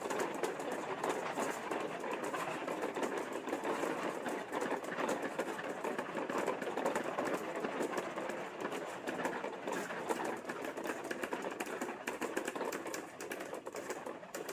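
Marbles rolling and clattering along a plastic marble-run track: a continuous rolling rumble dotted with many small clicks, easing slightly near the end.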